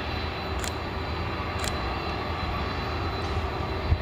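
Jet airliner engines heard across an airport runway, a steady low rumble with a hiss above it. Two short sharp clicks come about a second apart near the start.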